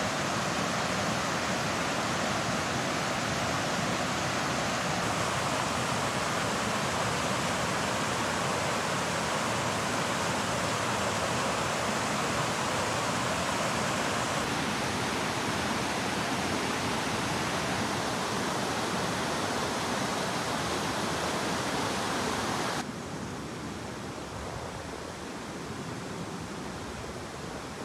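Water rushing over rocks in a small stream, a steady even hiss that drops suddenly to a quieter steady hiss about 23 seconds in.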